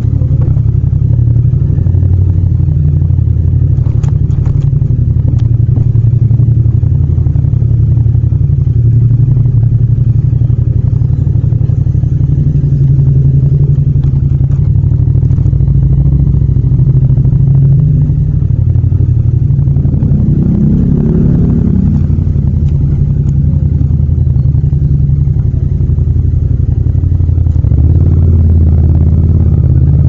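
Yamaha MT-07's parallel-twin engine running steadily as the bike rolls slowly, with a few light clicks about four seconds in.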